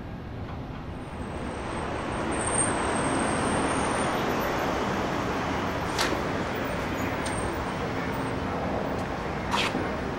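Street traffic noise: a passing vehicle swells about two seconds in and eases off slowly, with two sharp clicks about six and nine and a half seconds in.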